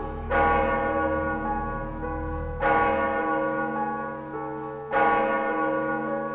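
A large bell tolling: three strikes about two and a quarter seconds apart, each ringing on and fading into the next.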